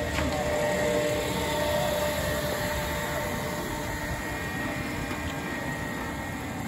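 A small Ferris wheel turning, its drive machinery giving a steady mechanical hum with a faint whine.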